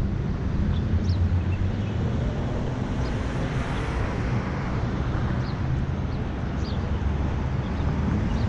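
Steady outdoor city ambience: a low rumble of traffic and wind on the microphone, with a few faint, short high chirps.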